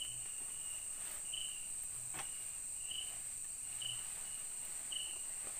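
Night-time forest insect chorus: a steady high shrill of crickets, with a short chirp repeating about once a second.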